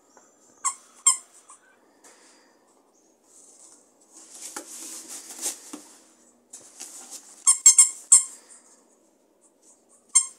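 Squeakers in a Zippypaws Burrow plush dog toy squeaking as a dog bites it: a pair of short squeaks near the start, a quick run of several squeaks about two-thirds through, and more at the very end. Soft rustling of plush fabric from the dog's mouthing comes in between.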